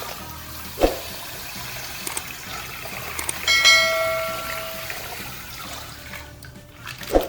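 Colored water pouring and sloshing in plastic, with a sharp thump about a second in and another near the end. A bright bell-like chime rings out about three and a half seconds in and fades.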